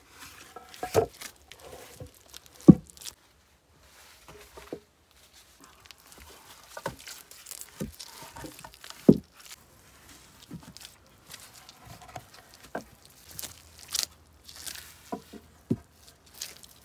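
A wooden log being fitted against an earthen wall: scattered dull thumps and knocks of wood, the loudest about three seconds in and again about nine seconds in, among crunching footsteps on damp soil.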